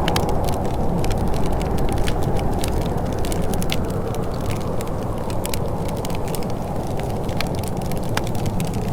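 Wood fire in a fireplace crackling, with frequent small sharp pops at irregular intervals over a steady low rushing.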